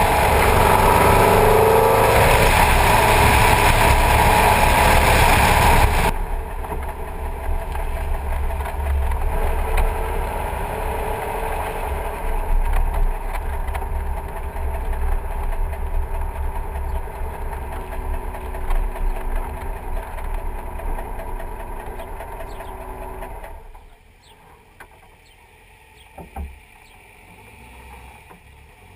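Vintage car driving, heard from a camera on its front fender: wind rushing over the microphone with the engine running underneath. About six seconds in the wind noise drops and the engine note carries on steadily. Near the end the sound falls away abruptly to quiet, with a single thump.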